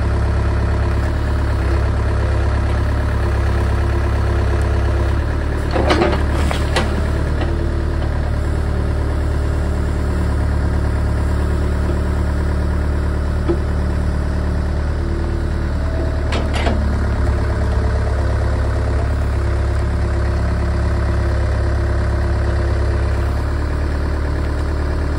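Cat 307 excavator's diesel engine running steadily while it works its hydraulics to lever a large stump out of the ground and lift it. A few sharp cracks or knocks stand out about six seconds in and again about sixteen seconds in.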